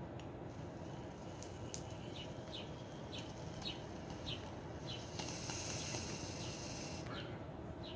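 Glass water bong being smoked: a quiet hit, with a soft hiss swelling about five seconds in and easing off near the end. A regular series of short high chirps, about one every two-thirds of a second, runs alongside.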